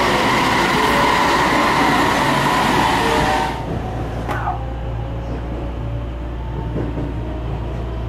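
A passing train rushes by at speed, a loud steady rush with whining tones. A bit over three seconds in it cuts abruptly to the quieter cabin of a JR West 225-series electric train pulling away: a steady low hum, with a faint motor whine slowly rising in pitch as it picks up speed.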